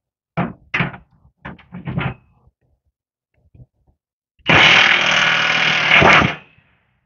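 Impact wrench with a 15/16 socket running in one burst of about two seconds on a snowplow's bottom bolt, after a few short knocks.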